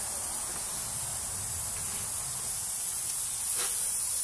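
Steady high-pitched hiss at an even level, with a faint short knock about three and a half seconds in.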